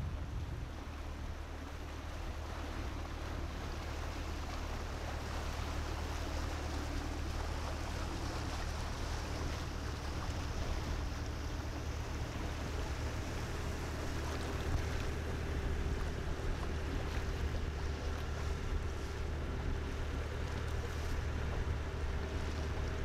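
Small tug-style workboat's engine running steadily under way, a low even drone, with water rushing past the hull and wind blowing across.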